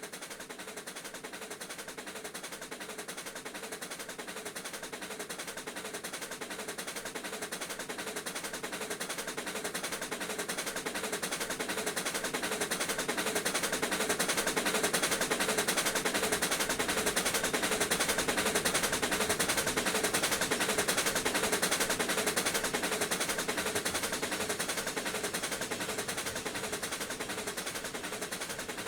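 Two Pennsylvania Railroad steam locomotives, 4-4-2 No. 7002 and 4-4-0 No. 1223, working together as a doubleheader, their exhaust chuffing in rapid beats. The sound grows louder toward the middle and eases slightly near the end.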